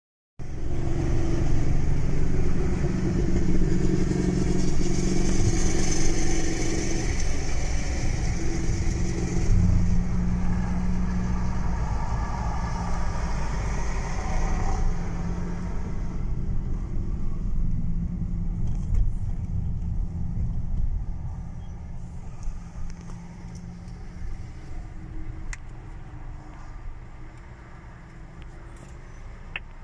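Road noise inside a moving car's cabin: a steady engine and tyre rumble at dual-carriageway speed that grows gradually quieter over the second half as the car slows to a stop, with a few faint clicks near the end.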